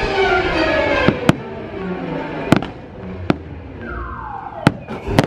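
Fireworks display: orchestral show music fades out in the first second, then about six sharp firework bangs go off, with a falling whistle leading into one of the bangs near the end.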